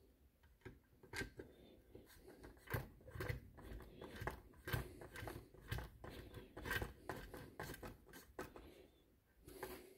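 Hand screwdriver turning small screws down into the plastic of a GM HEI distributor cap, giving faint irregular clicks and scrapes as the tool works and the cap is shifted on the bench.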